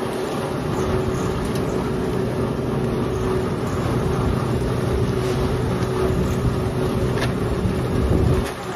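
Motor-driven black pepper screening machine running steadily, a constant machine hum with a sieving rattle-hiss over it; the sound dips briefly just before the end.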